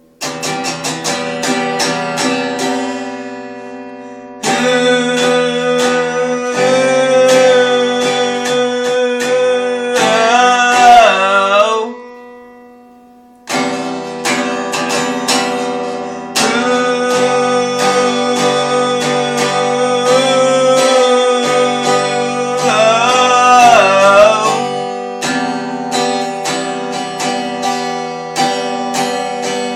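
Acoustic guitar music, strummed and picked chords ringing out, with a bending high note about ten seconds in and again near twenty-three seconds. The music fades out around twelve seconds and starts again a second and a half later.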